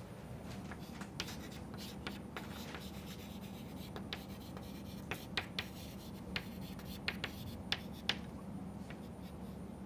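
Chalk writing on a chalkboard: faint scratching strokes broken by sharp taps as the chalk strikes the board, over a low steady hum.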